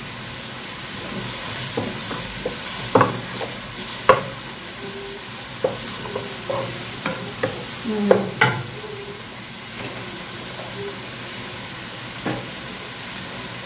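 Sliced beef sizzling in a nonstick wok as it is stir-fried, with a wooden spatula knocking and scraping against the pan now and then, the knocks bunched in the first two thirds and one more near the end.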